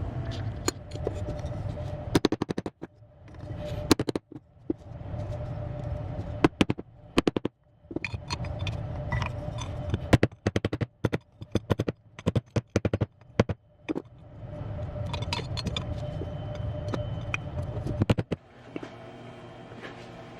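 A milling machine's motor running in spells and stopping in between, with many sharp metallic clicks and knocks of brass parts and tools being handled.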